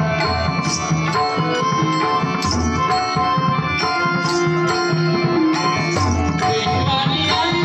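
Devotional bhajan ensemble playing a slow abhang: long held melody notes over low hand-drum strokes and small hand cymbals striking about once a second.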